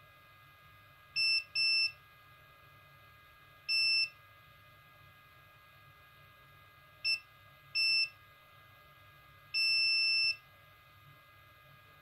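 Multimeter beeping in continuity test mode as its probes touch points on a circuit board: six high beeps at irregular intervals, a short pair about a second in, the last held for most of a second. The beeps mean the meter finds a low-resistance path across the component being probed, which the repairer takes to mean it is faulty and needs replacing.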